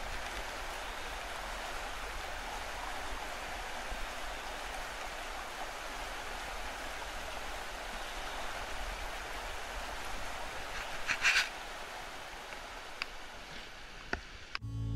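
Shallow mountain stream rushing over rocks: a steady, even wash of water, with a brief louder rush about eleven seconds in and a few light clicks near the end.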